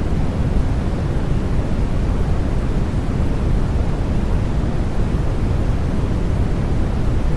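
Continuous baby-sleep white noise: an even, unchanging hiss weighted to the low end, deep and rumbly with little treble.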